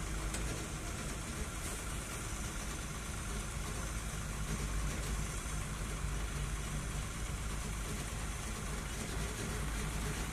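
Old Ashok Leyland trailer truck's diesel engine running steadily at low speed, with a constant low rumble under wind and road noise.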